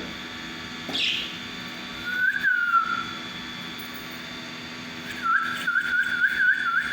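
Pet parakeets calling: a short chirp about a second in, then a whistled warbling note, and from about five seconds in a fast up-and-down whistled trill.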